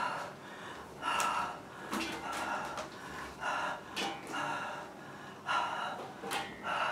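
A woman breathing hard from exertion mid-workout, with sharp, gasping breaths coming about once a second.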